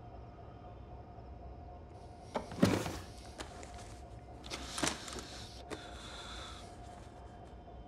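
Desk-side handling sounds: a sharp knock and scrape about two and a half seconds in, then the crinkle and rustle of a white plastic packet being picked up and handed over around five seconds, over a steady room hum.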